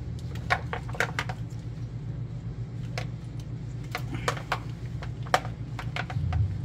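Irregular light clicks and taps of plastic connectors and wires knocking against the valve body as the internal wiring harness of an A750E automatic transmission is worked loose by hand, over a steady low hum.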